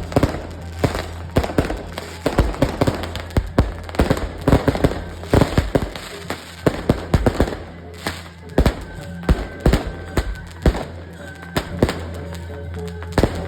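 Firecrackers going off in irregular sharp bangs, several a second, over procession music and a steady low hum.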